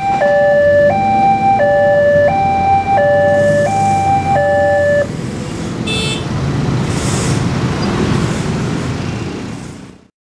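Railroad level crossing's electronic warning alarm from the pole-mounted horn speaker, a high and a low note alternating, each held under a second, stopping about five seconds in once the train has cleared and the barriers lift. Road traffic, a minibus and motorbikes, then moves off over the crossing, and the sound fades out near the end.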